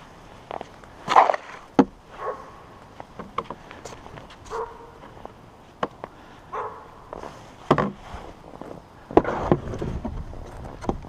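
Footsteps crunching irregularly through fresh snow, with scattered short knocks.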